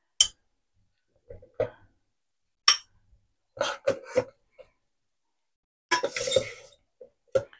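Kitchenware clinking and knocking on a counter in a string of short, sharp strikes, with a brief scraping rustle about six seconds in.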